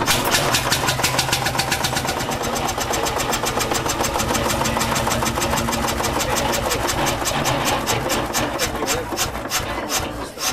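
A vintage engine running with a rapid, even beat, which slows a little near the end.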